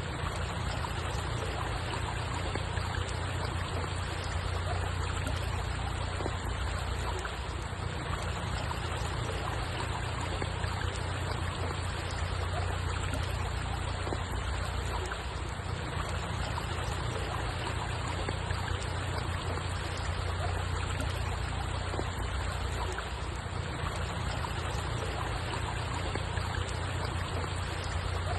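Steady flowing, trickling water, with a constant low rumble underneath.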